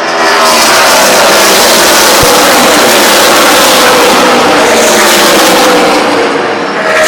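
Race trucks passing close by at speed, very loud, the engine note falling as they go past. Another truck comes by near the end.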